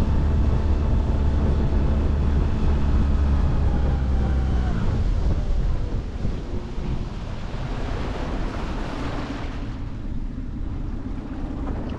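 Tiller outboard motor pushing an aluminium jon boat at speed, a steady drone with wind on the microphone. About five seconds in the throttle comes back, the pitch falls and the engine quietens, leaving water rushing along the hull and wind as the boat comes off plane.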